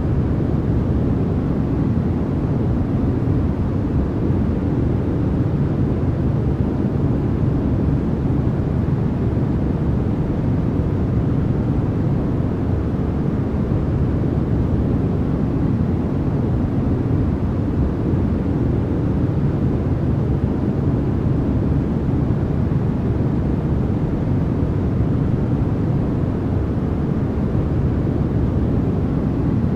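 Synthetic white noise for sleep, played as one steady, unchanging rush. Most of its weight sits in the low end, so it sounds deep and rumbling rather than bright and hissy.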